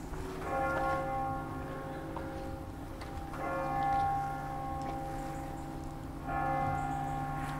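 Church bells ringing in the tower, with a new stroke about every three seconds and the ring lingering between strokes.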